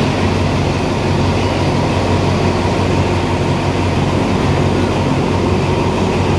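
Diesel locomotive engine idling with a steady low hum.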